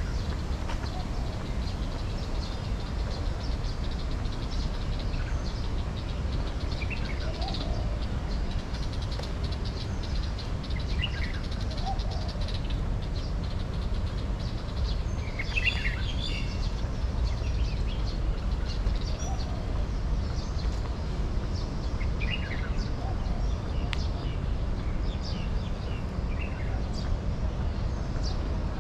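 Birds chirping on and off, short high calls scattered throughout, with a lower call every few seconds, over a steady low rumble.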